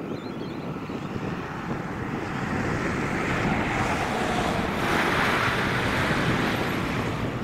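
Airbus A380's four jet engines rumbling as the airliner rolls out on the runway just after touchdown, swelling louder and brighter around the middle. Wind buffets the microphone throughout.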